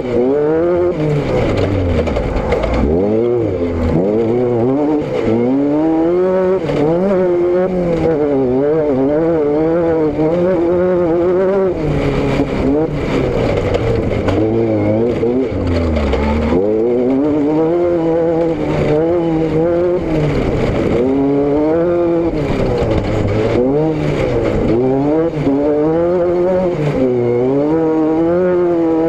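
Car engine and exhaust running under way, its pitch rising and falling every second or so with changing revs, with brief lower dips about three seconds in and around the middle.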